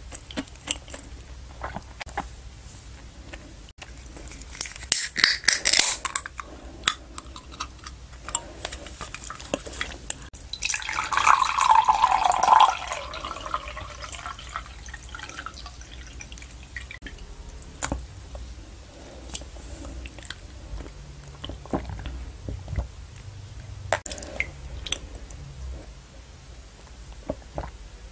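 A can of winter melon tea is cracked open with a brief hiss about five seconds in. Near the middle the tea is poured from the can into a glass mug, a splashing pour of about two seconds. Small clicks and sips follow near the end.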